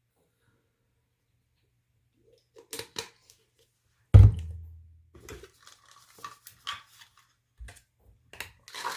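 Supplement bottles being handled and set down on a hard surface: after a quiet first couple of seconds, a few light clicks, then one loud thunk about four seconds in, followed by small scattered clatters.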